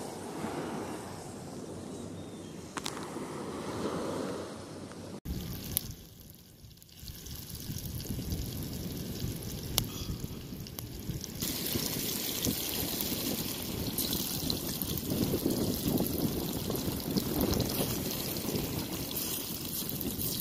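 Sliced sweet potato and plantain sizzling in hot oil in a pan over a wood fire: a steady frying hiss. It starts about five seconds in after a quieter stretch of outdoor noise, and grows louder about halfway through.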